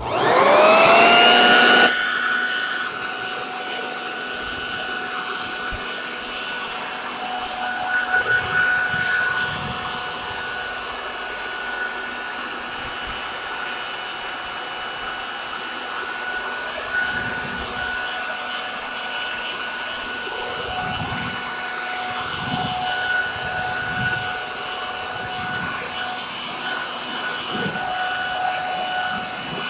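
Corded electric leaf blower switching on with a rising whine, loudest for the first couple of seconds, then running steadily with a high whine while it blows the remaining debris out of a gutter.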